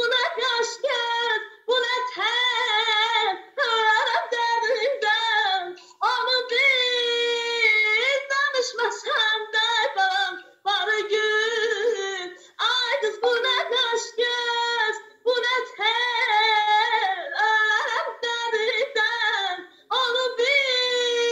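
A woman singing solo without accompaniment, in phrases of held notes broken by short pauses for breath. It comes through a video call, thin, with no low end.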